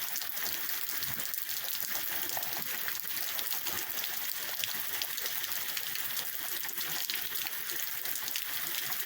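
Heavy rain pouring steadily, a constant hiss with many small patters of drops.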